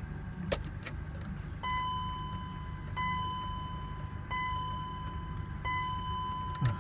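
BMW X5 dashboard warning chime sounding four times, about one and a third seconds apart, over a low steady rumble. A single click comes about half a second in and another just before the end.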